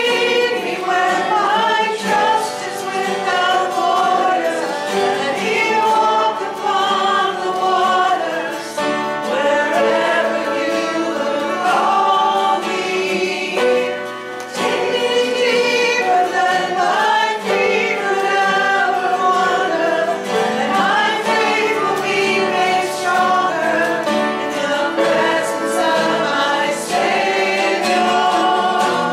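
Many voices singing a hymn together in several parts, without a break.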